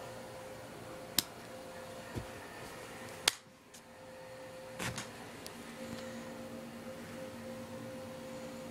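A few sharp clicks and knocks over a steady low hum: a pair of clicks, a dull knock between them, the loudest click about three seconds in, and a couple more close together about five seconds in.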